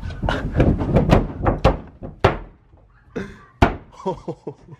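Feet stomping and jumping on a car's sheet-metal roof: a quick run of heavy thuds for about two seconds, then a pause and one more hard thud.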